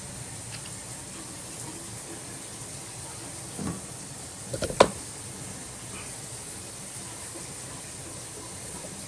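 Samsung VRTplus washer running a cycle, a steady rush of water flowing in. A few sharp knocks come just after the middle, the loudest one near the halfway point.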